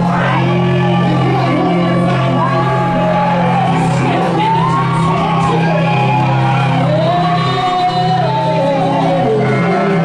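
Live worship music: steady sustained keyboard chords under voices singing and shouting.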